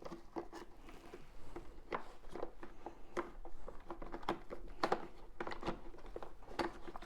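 Scattered light clicks and taps of plastic parts handled by hand: the Sebo X8 vacuum's brush roll being worked at to pop its end cap off.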